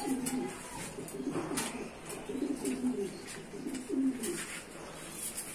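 Domestic pigeons cooing in their wire loft cages: a series of short, low coos repeating every second or so. A few light clicks sound in between.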